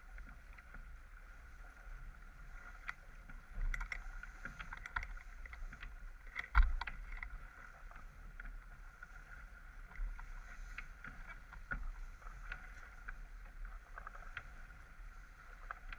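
Water rushing and splashing along the hull of a J/24 sailboat heeled over under sail, with wind rumbling on the microphone and irregular knocks from waves slapping the hull, the loudest about six and a half seconds in.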